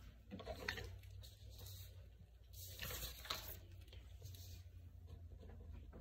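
Quiet room with a low steady hum and a few faint rustles and shuffles of movement.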